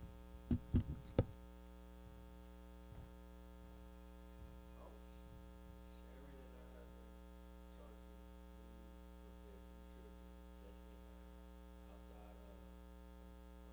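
Steady electrical mains hum from the sound system, with three or four sharp knocks about a second in and faint, distant voices.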